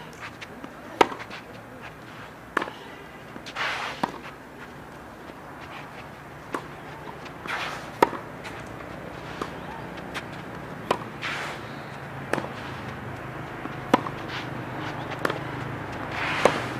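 Tennis rally: rackets strike the ball and it bounces on the court, a sharp pop about every second and a half. Between the pops come short scuffs of shoes sliding on the court surface.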